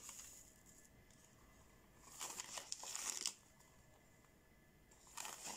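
Foil sachet of dry yeast crinkling as a teaspoon digs into it and scoops out the granules, in two short spells of rustling, one about two seconds in and one near the end.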